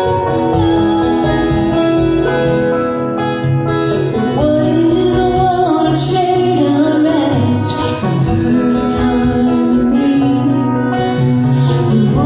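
A country-style song: singing over plucked acoustic guitar, with voices coming in clearly about four seconds in.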